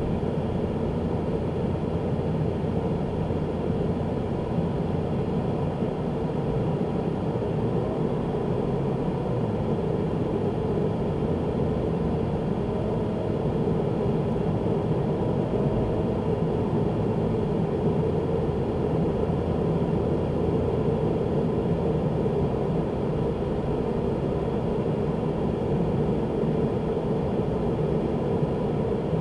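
Steady road noise inside a car's cabin at speed, as picked up by a windscreen dashcam, growing slightly louder as the car speeds up from about 60 to 80 km/h.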